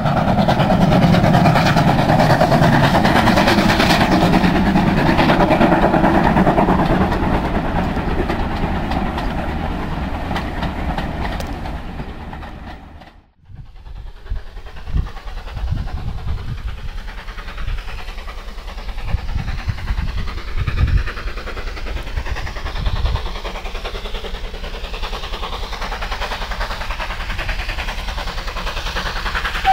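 Steam locomotive 5619, a GWR 56xx 0-6-2T tank engine, working a train. A steady rushing noise fills about the first thirteen seconds. After a brief drop, the engine approaches under steam with uneven low exhaust beats.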